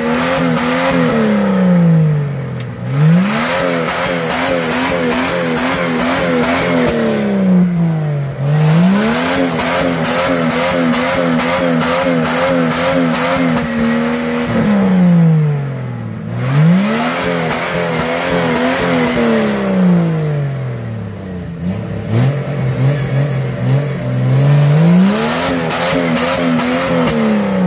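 Jeep Cherokee XJ engine revving hard as it tries to drive out of the deep mud hole it is stuck in, held high for a few seconds at a time and then let fall back, about five times over.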